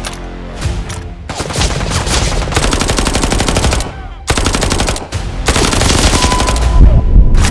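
Rapid automatic fire in three long bursts, each a fast, even string of sharp shots.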